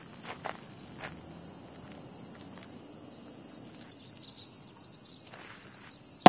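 Steady high-pitched chirring of insects. There are a few faint ticks in the first second and a sudden sharp crack at the very end.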